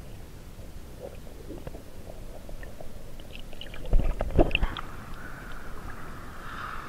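Muffled underwater sound picked up by an action camera in its waterproof housing: a low rumble with scattered faint clicks, and a couple of loud knocks about four seconds in. After about five seconds a steady higher hiss joins in.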